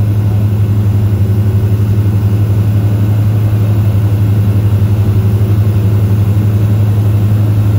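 Cessna 172S's Thielert TAE 125 four-cylinder turbodiesel engine and propeller droning steadily, heard inside the cockpit. The note holds one pitch with a fast, even pulsing.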